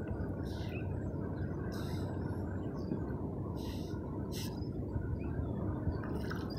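Small waves lapping at a kayak's hull: a few short splashy hisses over a steady low rumble, likely wind on the microphone.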